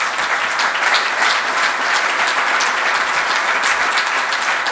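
Audience applauding: many hands clapping together, loud and steady.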